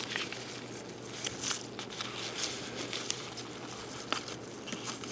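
Light scratching and rustling with scattered small clicks, small handling noises close to the microphone.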